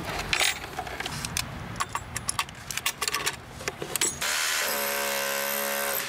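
Light clicks and rustles of hands working wires into a charger's terminal block, then about four seconds in a rotary hammer drill starts up and bores into brick with a steady, loud buzzing hammer rhythm.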